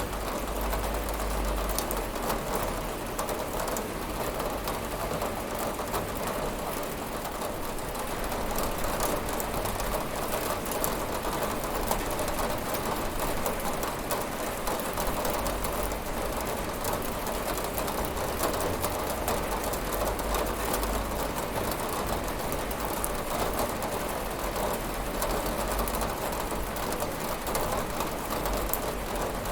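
Steady rain pattering on a window, an even dense hiss with many fine drop clicks.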